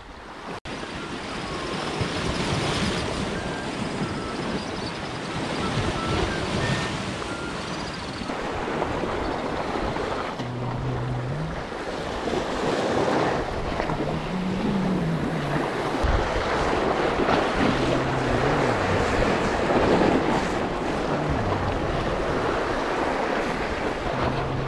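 Sea waves surging and washing against a rocky shore, with wind buffeting the microphone.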